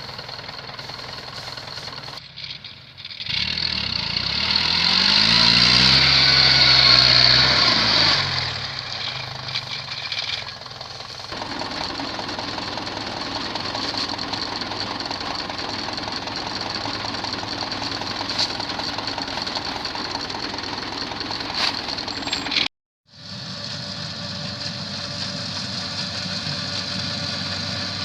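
Rice combine harvester's diesel engine running steadily. About three seconds in it grows louder for several seconds with its pitch shifting, then settles back to an even run. The sound drops out for a moment near the end.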